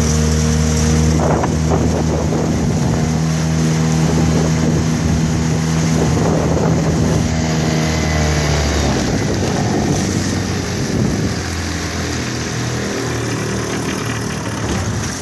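Yamaha Malta 3 hp outboard motor running steadily, driving a small aluminium boat, with water churning and wind noise around it. About nine seconds in, the engine's steady tone changes and grows a little quieter.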